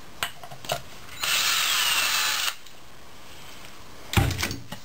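Ryobi cordless drill running for about a second and a half, backing out a reverse servo cover bolt on a 4L80E transmission, its motor whine falling in pitch as it runs. Near the end, a loud clunk.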